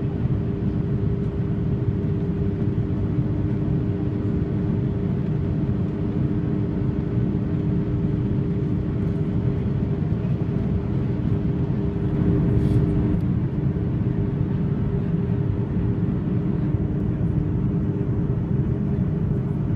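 Airliner cabin noise in flight: a steady, even roar of the engines and airflow, with a constant low hum.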